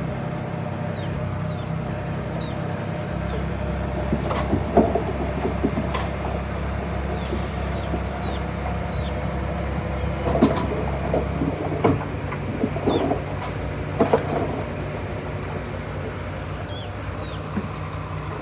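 Heavy diesel earthmoving machinery running steadily, with a handful of sharp metallic knocks and clanks scattered through it. The engine note shifts lower about two-thirds of the way in.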